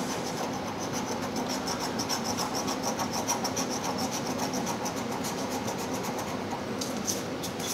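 A copper coin scratching the coating off a scratch-off lottery ticket in quick, regular back-and-forth strokes. It eases off near the end, leaving a few light scrapes.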